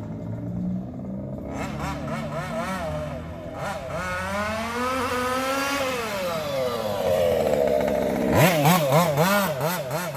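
MCD XR5 RC buggy's small two-stroke engine revving. Its pitch climbs steeply about four seconds in and falls away again by about six and a half seconds, then rises and falls in quick throttle blips near the end.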